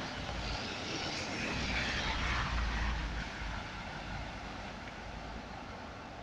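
A minibus and a car driving through deep floodwater, their tyres throwing up a rushing splash of water over a low engine rumble. The sound fades as they move away.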